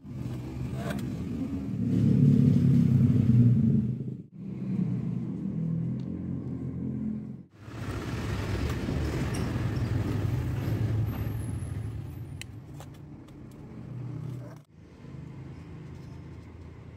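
Low engine rumble of a motor vehicle running nearby, swelling and fading, broken off abruptly three times.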